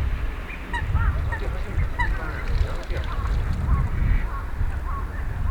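A flock of Eurasian wigeon calling, many short whistled calls from the drakes overlapping one after another, over a low rumble.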